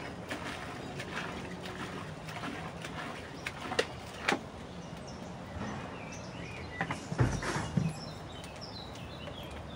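Water poured from a plastic jerry can into a plastic bucket, with a few knocks of the can, then the can set down with a heavy thud about seven seconds in. Birds chirp near the end.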